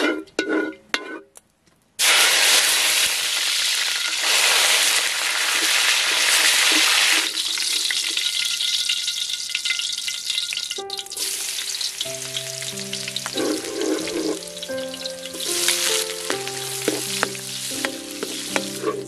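Hot oil sizzling loudly in a wok, starting suddenly about two seconds in. Red onion and garlic dropped into the oil near the end set off a fresh burst of sizzling as they are stirred with a wooden spatula.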